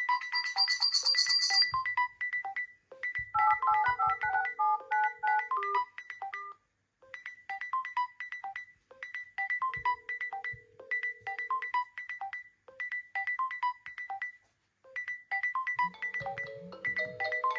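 Smartphone ringtone playing: a short melody of bright notes that repeats about every two seconds, with brief pauses between repeats. A different, lower tone comes in near the end.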